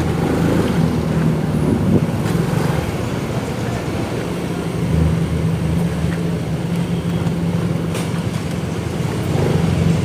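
Motorcycle engine running steadily at low speed, heard from the bike itself, over the hum of slow, congested street traffic.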